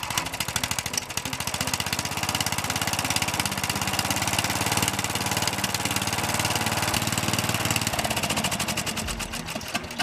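18 hp Briggs & Stratton engine on a Murray riding mower running at a steady speed with a rapid, even exhaust beat, a little quieter near the end. It has just been started on a newly fitted carburetor and is running without a muffler.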